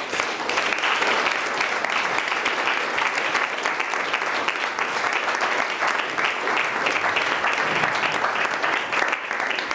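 Small audience of about twenty people applauding steadily at the end of a talk.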